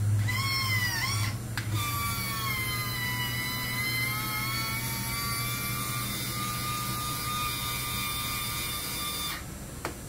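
Drill press cutting with a large hole saw: a high whine that wavers in pitch for the first second, then settles into a steady whine over the motor's low hum. The whine stops abruptly near the end.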